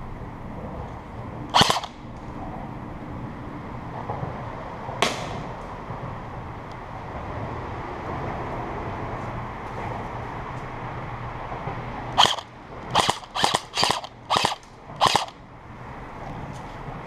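Airsoft guns firing single shots: one about a second and a half in, another about five seconds in, then a run of six shots over about three seconds near the end.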